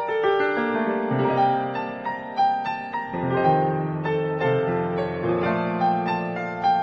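Instrumental background music on piano: a melody of short notes over held bass notes.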